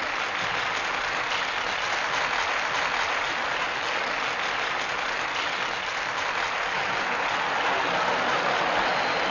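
Large stadium crowd cheering and clapping, a dense steady noise that swells slightly near the end, on a 1940s film soundtrack.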